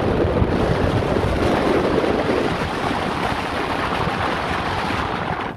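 Wind rushing over the microphone of a phone or camera in a moving car, over the low rumble of the car on the road. It cuts off suddenly near the end.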